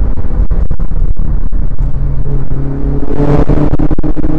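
Mitsubishi Lancer Evolution IX MR's turbocharged four-cylinder engine pulling hard, heard from inside the cabin, its pitch climbing about three seconds in. The recording is very loud and breaks up with many brief dropouts.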